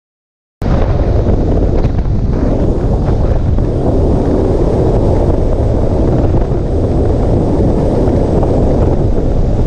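Loud, steady wind rushing over the microphone of a boat running at speed across open water, with the rumble of the hull and its run beneath. It starts abruptly just under a second in.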